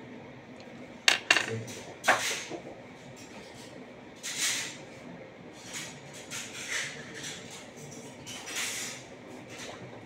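Metal key clinking sharply on a washing machine's glass lid, a quick pair of clinks about a second in and another about two seconds in, followed by softer handling noises.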